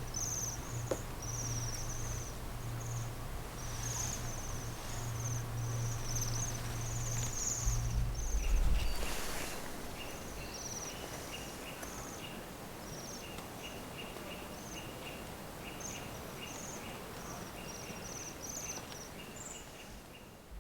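Bohemian waxwings calling: thin, high trilling notes repeated many times in quick succession. From about halfway through, a second series of short, lower notes joins in, and a low hum runs under the first part, with a brief loud rush of noise in the middle.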